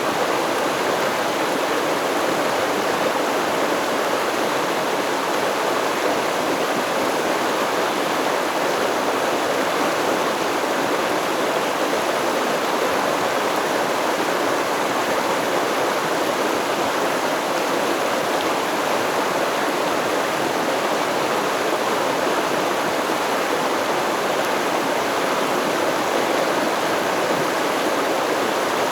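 Shallow stream running over stones, a steady rushing and babbling of water with no breaks.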